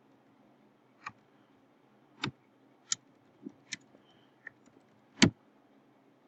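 Computer keyboard keystrokes: about seven separate clicks at an uneven pace, the last the loudest.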